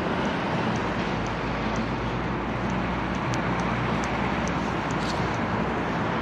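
Steady road traffic noise, with faint light ticks about twice a second.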